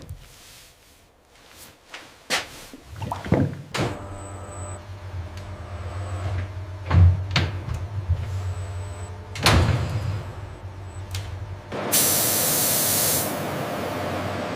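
Factory machine sounds: a handful of knocks and clunks over a steady low machine hum. Then a sudden loud hiss of air about twelve seconds in, which drops after a second or so to a steady rushing noise.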